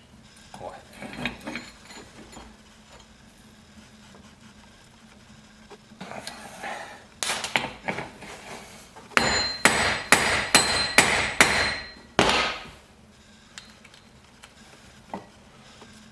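Hammer blows on a metal automatic belt tensioner being knocked apart: a few scraping knocks, then a quick run of about seven sharp, ringing strikes in the second half.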